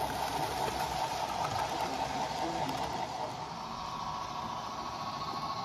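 Model steam locomotive and its train running past on the layout track: a steady whirring of motor and wheels that eases off about three and a half seconds in as the train moves away, leaving a thin steady whine.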